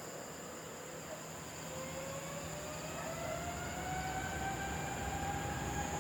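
Boeing 777 BBJ's twin jet engines spooling up, a whine that rises slowly in pitch and grows louder from about a second and a half in, as thrust is set for take-off.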